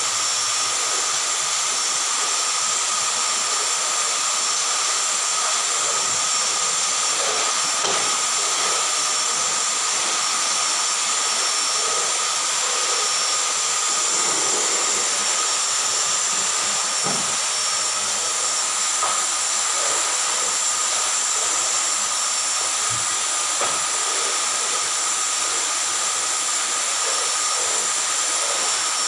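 Vacuum cleaner running steadily: a constant hiss with a high whine, as its nozzle is pushed over the floor. A few faint knocks come through.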